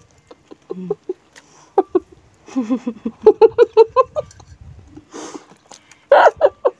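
Women eating noodles with their mouths full, making short wordless voice sounds: a quick run of short pitched sounds, about five a second, from about two and a half seconds in, a brief breathy hiss about five seconds in, and a louder voiced sound near the end.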